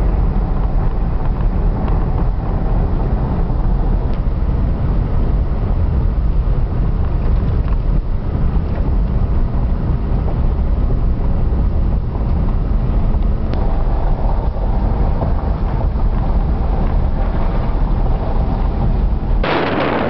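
Car driving on a dirt and gravel road, heard from inside the cabin: a steady, loud low rumble of tyres on the rough surface and the engine. Near the end a loud rush of wind noise on the microphone sets in.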